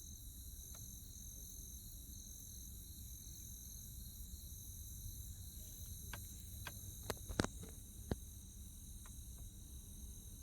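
Steady chorus of night insects, a constant high buzzing trill, over a low rumbling background. A handful of sharp clicks come between about six and eight seconds in.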